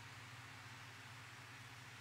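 Near silence: faint room tone, a steady hiss with a low hum.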